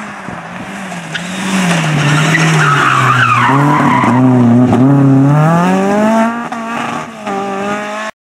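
Renault Clio Ragnotti rally car's 2.0-litre four-cylinder engine passing at speed. The note falls as it slows into a corner, with tyres scrabbling on the dusty road as it slides, then rises hard under acceleration, broken twice by quick sequential-gearbox upshifts, before the sound cuts off suddenly.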